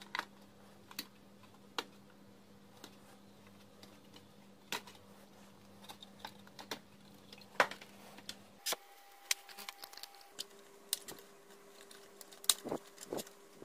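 Irregular clicks and light knocks of a Kenwood KA-34 amplifier's front panel being handled and unclipped from its chassis, fingers working its clips; the sharpest click comes a little past halfway, with a cluster near the end.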